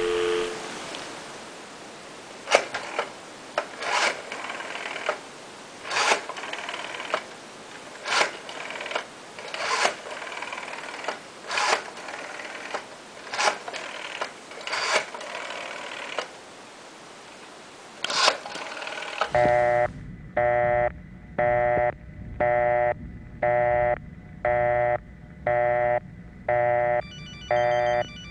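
Red rotary-dial desk telephone being dialed: ten digits, each dial turn ending in a sharp click as it spins back, over a steady line hiss. Then a repeating tone comes on the line, on and off about once a second.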